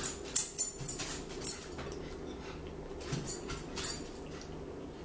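Close-miked eating sounds: a handful of short, sharp mouth smacks and clicks as food is chewed, spaced irregularly over a low steady hum.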